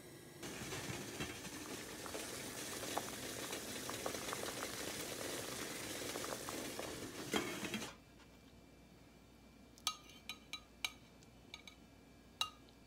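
Water boiling under a stainless steel steamer pot, a steady bubbling hiss that stops suddenly about eight seconds in. Then metal tongs clink several times against a ceramic plate as the steamed pork rolls are set down.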